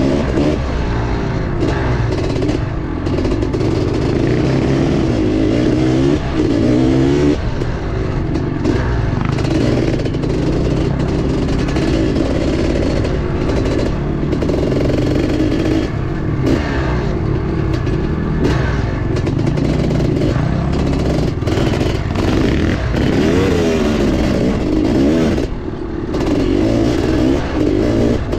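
Honda CR500's two-stroke single-cylinder engine running hard under way, its pitch rising and falling again and again as the throttle is opened and eased off.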